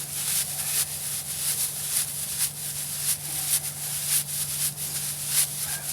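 Dry shredded bark tinder rustling and crackling as it is handled and fluffed into a bird's nest bundle, a dense run of irregular small crackles.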